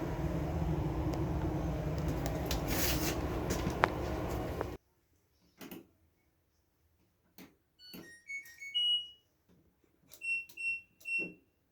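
Steady machine running noise that cuts off abruptly about five seconds in. After it, an LG dryer's control panel beeps: a short rising two-note chime, then three single button beeps.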